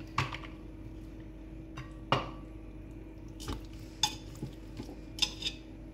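Pieces of raw lamb being put by hand into the nonstick cooking bowl of a Moulinex Cookeo multicooker, on top of chopped onion, with about half a dozen separate soft knocks and clinks against the pot.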